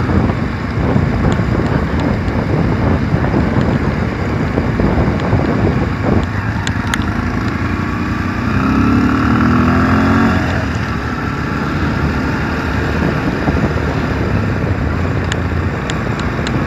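Motorcycle on the move: engine running under steady wind rush on the microphone, with a pitched engine note rising in level for a couple of seconds a little past halfway.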